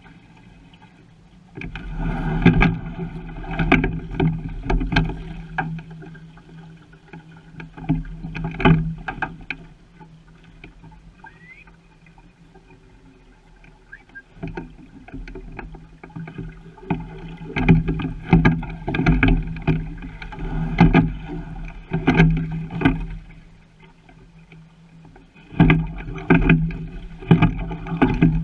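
A single sculling boat being rowed: water noise and repeated knocks coming through the hull, heard in loud stretches of several seconds separated by quieter gaps.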